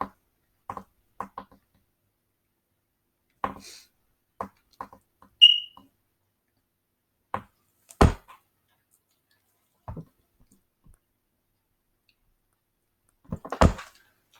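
Scattered small taps and knocks of brush and painting gear being handled, a dozen or so spread out, with two heavier knocks about eight seconds in and near the end. A brief high squeak comes about five and a half seconds in.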